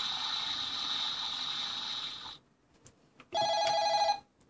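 Electronic sound effects from an Early Learning Centre toy fire engine. A recorded water-spray hiss stops a little past halfway, followed by a couple of faint button clicks. Near the end comes one burst of a ringing telephone tone.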